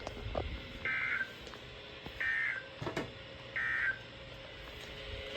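Weather radio receiver sounding the three short, high-pitched buzzing SAME end-of-message data bursts, about a second and a half apart, which mark the end of the emergency alert. Faint static with a few clicks runs underneath.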